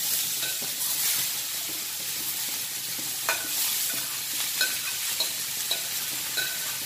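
Chopped onions hitting hot oil in a cast-iron skillet: a sizzle that starts suddenly and runs on steadily as they fry. From about three seconds in, a metal spoon clinks several times, about every half second, as chopped ginger, green chilli and curry leaves are scraped in after them.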